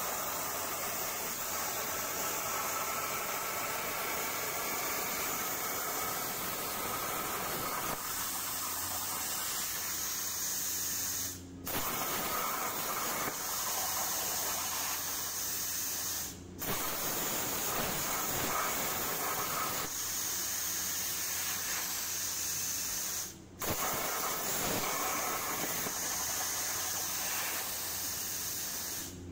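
Hypertherm Powermax85 air plasma torch cutting 10-gauge steel with FineCut consumables at 45 amps: a steady harsh hiss of the arc and air. It breaks off for a moment three times.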